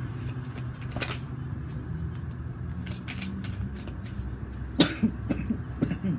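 A person coughs, a loud cough nearly five seconds in followed by a few shorter ones, over a steady low hum.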